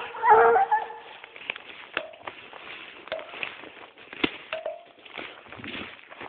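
A dog's short whining cry in the first second, then rustling and scattered sharp cracks as of twigs in undergrowth, with a few very brief faint calls.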